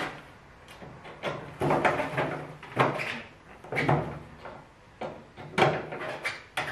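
Plastic grille and its small retaining clips being worked by hand on the underside of a MINI R53 bonnet: an irregular series of clicks, knocks and clatters, about one a second.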